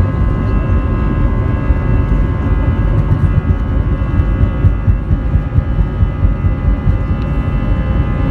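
Jet airliner engines running loud, a deep rumble under several steady high-pitched fan whines.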